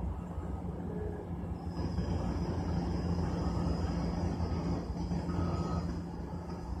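Steady low rumble and hum of distant heavy engines, with a steady high buzz coming in about two seconds in.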